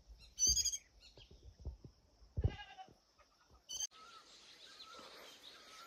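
A bird giving three short, harsh, high-pitched calls, about half a second, two and a half and four seconds in: a parent bird calling near its fledgling at the nest. Faint outdoor background with distant bird chirps after that.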